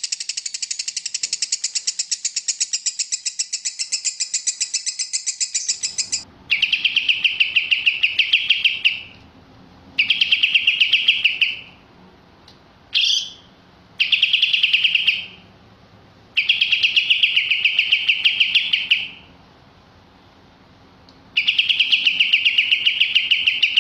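Songbird calls from a masteran training recording. A fast, even ticking trill runs for about six seconds, then gives way to a series of buzzy trilled phrases a couple of seconds long, separated by short pauses.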